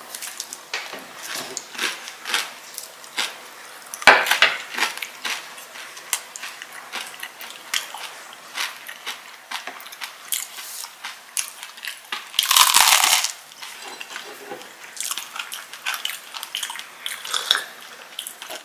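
Eating at a table: a foil-lidded cream cheese portion cup opened, a butter knife scraping cream cheese onto toasted crusty bread, and crunchy bites, with many small clicks of knife and dishes. A louder burst of noise lasts under a second about twelve seconds in.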